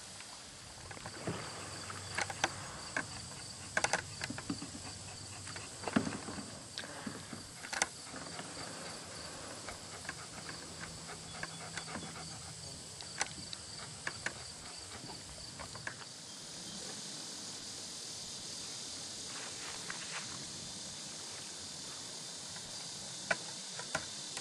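Knocks against a plastic kayak hull and small splashes as a channel catfish is handled aboard: scattered sharp knocks in the first half, then mostly a steady outdoor hiss after about 16 seconds.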